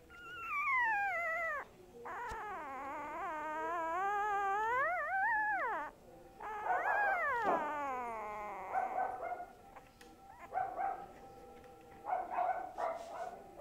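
A young dog howling: three long drawn-out calls, the first sliding down in pitch, the second wavering and climbing, the third rising then falling, followed by shorter broken whimpering calls in the second half.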